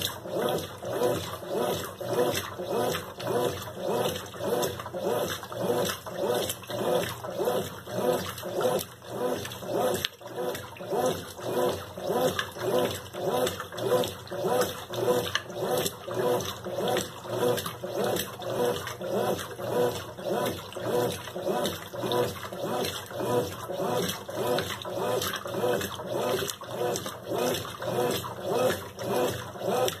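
Consul Maré Super 10 kg top-loading washing machine agitating its load. The motor drives the wash back and forth in a steady rhythm of about two strokes a second, with water sloshing in the tub.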